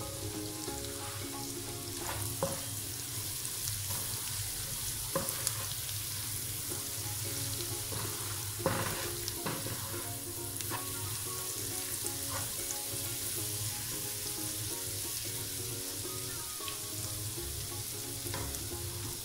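Chopped onion and garlic sizzling steadily in butter and oil in a nonstick wok as they brown to golden, with a spatula stirring and now and then knocking or scraping against the pan.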